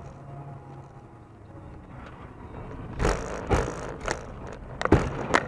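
Car travelling with a steady low engine and road hum, then about three seconds in a run of five or six loud bangs and crunches of a road collision.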